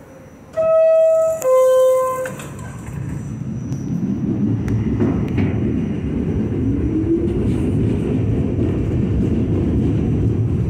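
Two-note falling door-closing chime of an R46 New York subway car, then the train pulling out: a low rumble builds and a motor whine rises in pitch as it accelerates.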